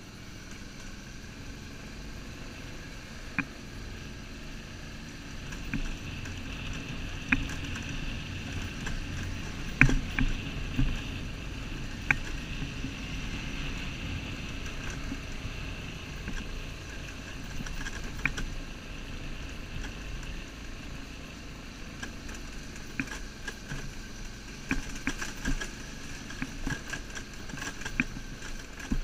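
BMW R1150GS Adventure's flat-twin engine running steadily while riding a rough dirt track, with road and wind rumble. Sharp knocks and rattles come now and then as the bike goes over stones and ruts, more often near the end.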